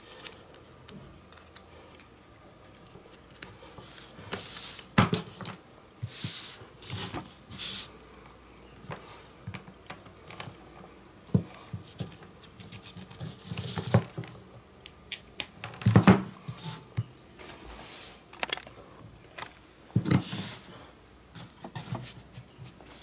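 Cables and their plugs being handled and connected: plastic rustling, scattered clicks and a few light knocks.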